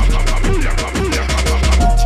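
Bass-heavy UK garage/bassline dance music mixed by a DJ, with a deep sub-bass line, bending synth or vocal-chop figures and fast ticking hi-hats.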